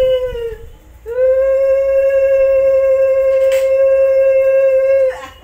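Conch shell (shankha) blown for the puja in two long, steady, single-pitched blasts: the first ends with a falling pitch about half a second in, and the second starts about a second in and holds steady for about four seconds before stopping.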